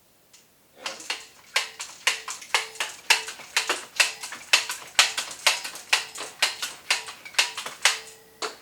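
A Cavender's seasoning shaker being shaken over steaks: a sharp tap about twice a second, each with a brief ring, starting about a second in and stopping near the end.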